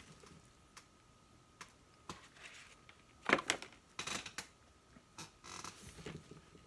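A person biting into and chewing a fried chicken and glazed donut sandwich: short crunches and wet mouth clicks, the loudest about three and four seconds in, over a faint steady high tone.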